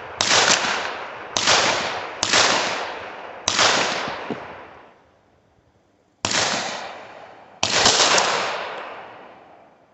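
Six pistol shots from a Springfield Armory 1911, each cracking sharply and then ringing out in a long echo. Four come in quick, uneven succession, then a pause of nearly three seconds, then two more.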